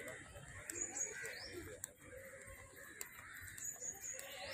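Birds calling outdoors: scattered short, high chirps and a couple of quick whistled glides over a steady high-pitched hum.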